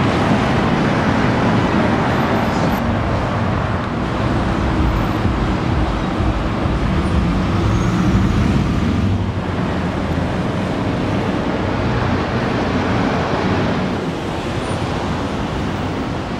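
Street traffic: a steady rush of passing cars.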